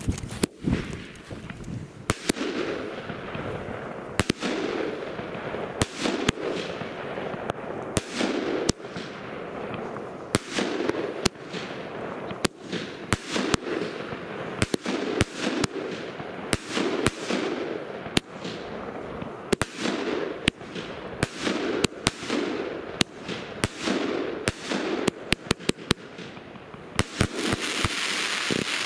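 Skypaint "Blue Emotion" firework battery firing a long run of shots: sharp bangs about one or two a second, each with a fading echo, coming faster in the last ten seconds and ending in a hissing swell.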